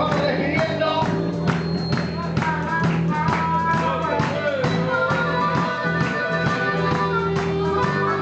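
A blues band playing an instrumental boogie with a steady beat.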